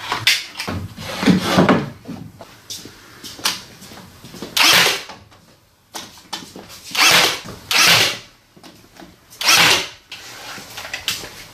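A pneumatic nail gun firing about six separate shots as a stair tread and riser are nailed down over construction adhesive, with a knock of boards being set in place about a second in.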